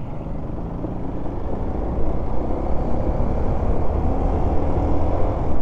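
Motorcycle engine running under way with wind noise, getting louder and rising a little in pitch from about two seconds in as the bike picks up speed.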